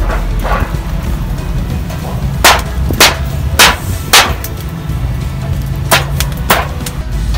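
Hammer blows, about six sharp strikes in two quick runs roughly half a second apart, over a low steady hum.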